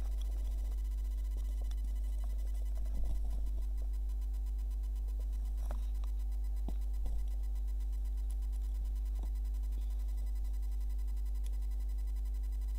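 Steady low electrical hum with a few soft clicks and knocks, a cluster about three seconds in and a couple more near six and seven seconds.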